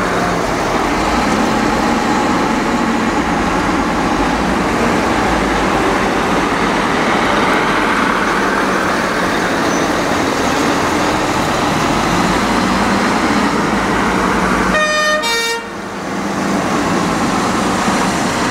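Dennis fire engines moving off with sirens and horns sounding over their diesel engines, a loud continuous din. It breaks off briefly about fifteen seconds in.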